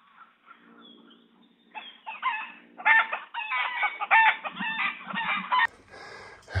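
Chickens clucking and a rooster crowing: a quick run of loud, pitched calls through the middle, after a few fainter calls at the start.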